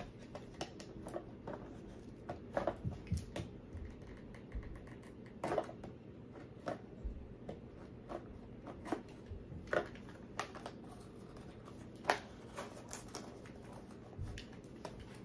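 Scattered light clicks, taps and rustles of small objects and packaging being handled, with a few soft thumps.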